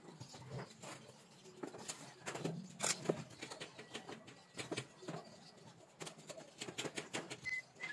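Irregular clicks and knocks of plastic and metal as the window air conditioner's plastic front cover is fitted back onto the unit. A few short high chirps near the end.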